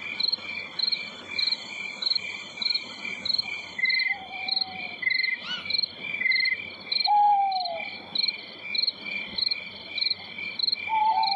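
Crickets chirping in an even rhythm of about three chirps a second. Two short falling whistle-like calls come in near the middle.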